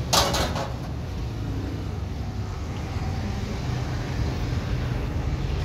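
Rice-flour pastries deep-frying in a wok of hot oil: a steady sizzle over a low rumble. Just after the start there is one short, loud scrape or clatter.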